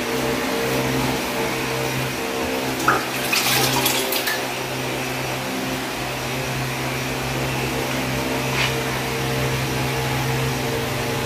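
Damp sponge wiping glazed ceramic tiles, a few rubbing strokes about three seconds in and one more near the end, over a steady whooshing hum.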